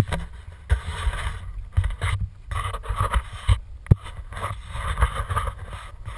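Wind buffeting a pole-mounted action camera's microphone in uneven gusts, with a few sharp knocks as the pole is handled.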